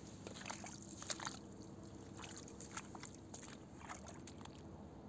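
Faint footsteps and clothing rustle on sand, heard as a scatter of soft, irregular scuffs and ticks.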